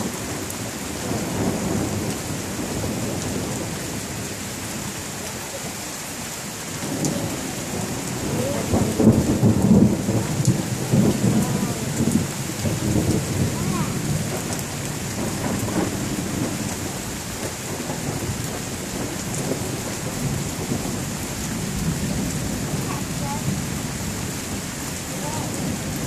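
Steady rain with a long roll of thunder that builds about seven seconds in, is loudest a few seconds later and rumbles away slowly.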